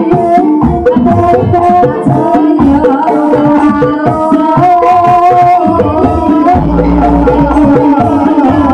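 Live Ebeg (kuda kepang) dance accompaniment in the dangdut kreasi style: kendang hand drums beating a busy rhythm under a sustained melody.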